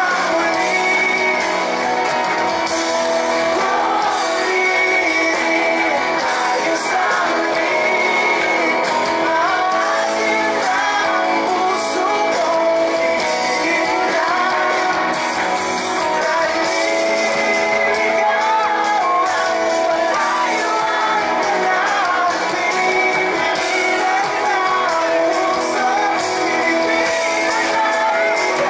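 Live band performing a pop-rock song: a male lead singer sings over guitars, drums and keyboard.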